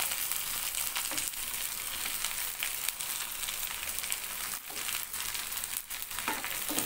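Freshly added sliced onions sizzling in hot oil in a nonstick frying pan, with a steady hiss, while a wooden spatula turns them.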